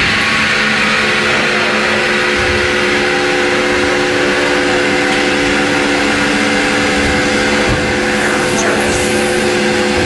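Vacuum forming machine running with a steady hum of several pitches over a hiss while a heated plastic sheet is drawn down into a bathtub shape.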